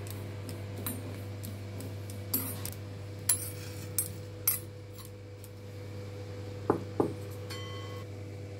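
Steel spoon knocking and scraping against an iron kadai and a steel plate as the roasted neem flowers are scraped out: a handful of sharp clicks and knocks, then two ringing clinks about seven seconds in, over a steady low hum.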